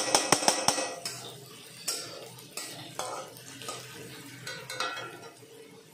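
Metal spatula stirring frying onions in an aluminium kadai, scraping and clinking against the pan: a quick run of clinks in the first second, then scattered scrapes and knocks.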